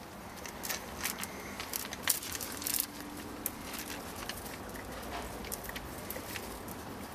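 Nylon play-tent fabric rustling and crinkling against the handheld camera, with a run of sharp clicks over the first three seconds and a quieter stretch after.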